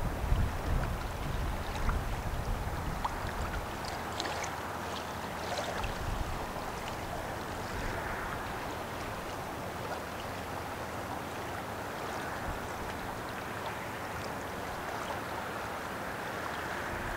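Steady rushing and lapping of river water, with gusts of wind rumbling on the microphone in the first couple of seconds.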